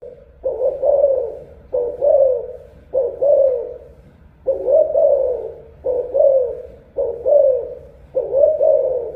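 Caged spotted dove of Malaysian stock cooing: a long run of low, rolling coo phrases, each about a second long, following one another with only brief pauses.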